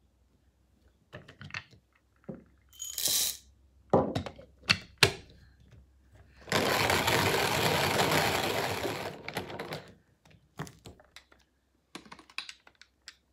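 Coffee beans rattle into a Handground manual burr grinder's hopper, with a few sharp clicks as the grinder is handled. About six seconds in, roughly three seconds of hand-cranked burr grinding of the beans, the loudest part, then light clicks and knocks as the glass catch jar is unscrewed.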